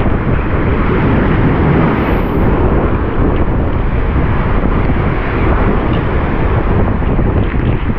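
Surf breaking and washing over the rocks of a rocky sea shore, mixed with heavy wind buffeting the microphone: a loud, steady noise with no pauses.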